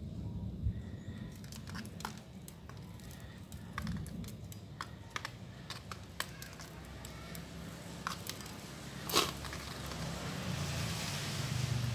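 Light clicks and scraping ticks of a grass-cutter's flat steel recoil-starter spring being wound by hand into a tight coil, with one sharper click about nine seconds in. A low rumble builds near the end.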